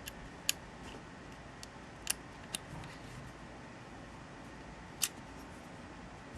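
A few sharp, separate metal clicks of an Allen wrench working the front barrel set screw on a Browning Buck Mark pistol, the loudest at about half a second, two seconds and five seconds in.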